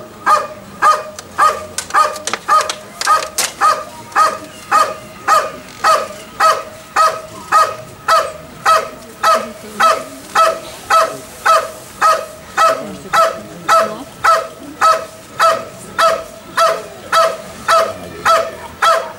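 Belgian Malinois barking steadily at a helper in the blind, about two barks a second, each bark at the same pitch: the hold-and-bark exercise of IPO protection work.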